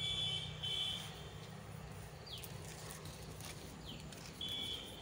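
Small birds calling: a high steady trill that stops about a second in, then a few short, quick falling chirps and a brief high note near the end, over a faint low hum.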